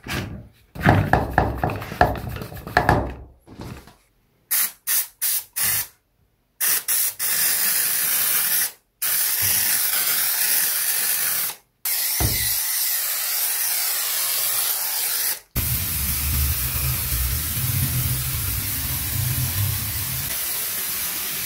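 Hand-pump pressure garden sprayer converted to a foam sprayer, with sponge packed behind the nozzle and an air hole in its pipe, being tested. Handling clatter first, then a few short hisses, then long steady sprays of foam, each cut off sharply when the trigger is let go. The last spray has a low rumble underneath.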